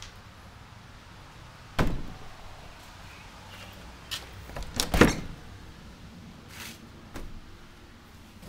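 Interior door with a round knob being opened and handled: a sharp knock about two seconds in, then a louder rattle and bang around five seconds, and a few softer knocks after.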